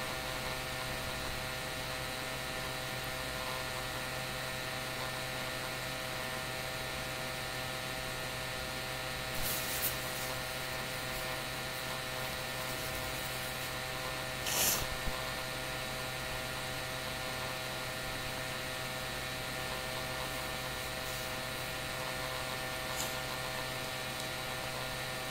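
Steady electrical hum with several faint steady tones, broken by two brief handling noises about ten and fifteen seconds in, the second the louder.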